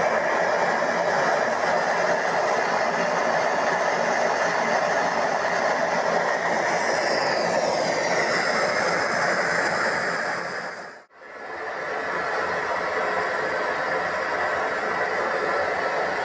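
A forge running with a steady rushing hiss. The sound fades out briefly about eleven seconds in, then comes back at the same level.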